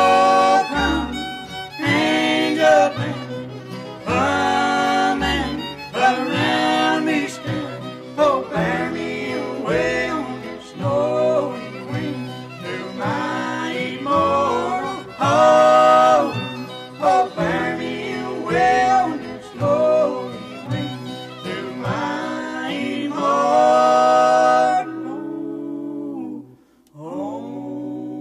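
Bluegrass gospel recording: an instrumental break with a fiddle playing the sliding melody over acoustic guitar backing. Near the end the fiddle drops out, the music falls away for a moment, and acoustic guitar carries on.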